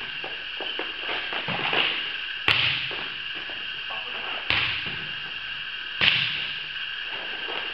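Volleyball being struck three times, sharp slaps about two seconds apart that echo in a large metal-roofed gym hall, over a steady background hum.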